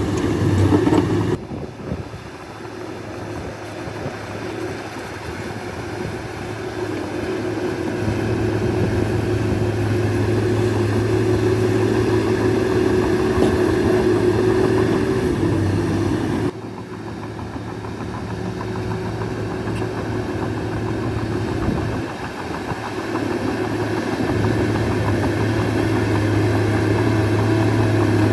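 Heavy diesel engine of a crawler bulldozer running steadily. The sound drops abruptly twice, about a second and a half in and about halfway through.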